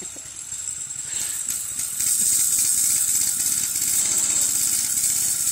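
Small gas engine of a kids' go-kart running as the kart drives around, growing louder about two seconds in.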